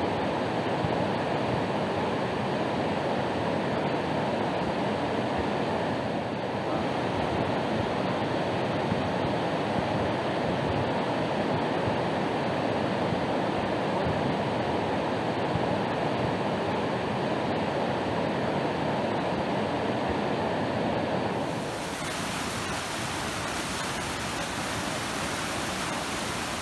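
Rushing river water of whitewater rapids heard from a raft, a steady, muffled rush. About 22 seconds in it changes to a slightly quieter, brighter rush of whitewater.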